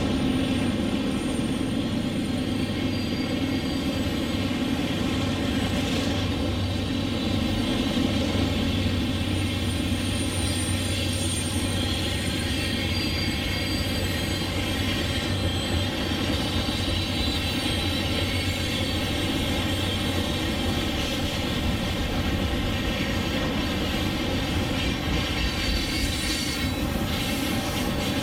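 HO scale model freight train passing: the steady diesel engine sound of the lead BNSF GE locomotives, with covered hopper cars rolling along the track.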